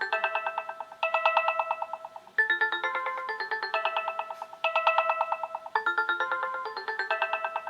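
A stock Sonim XP6 ringtone playing: a short melody of quickly repeated electronic notes that loops about every three and a half seconds.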